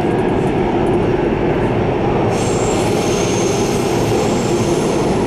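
Subway train running through a tunnel, heard from inside the car: a steady rumble, with a high wheel squeal setting in about two seconds in.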